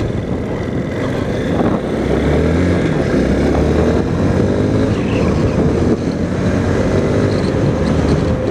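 Honda CRF230L's air-cooled single-cylinder four-stroke engine pulling the bike along and accelerating, heard from inside the rider's helmet. The engine note rises, drops back about three seconds in at a gear change, and climbs again.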